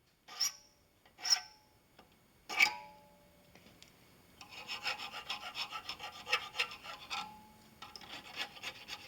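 Three sharp metallic clinks in the first few seconds, then quick, repeated strokes of a flat file's fine side rasping at the slot in a brass hinge tube, several strokes a second.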